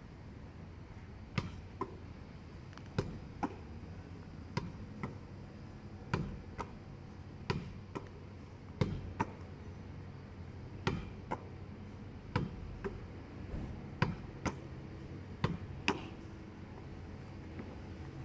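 A netball bouncing on an asphalt court: about ten pairs of sharp hits, each pair coming roughly every one and a half seconds.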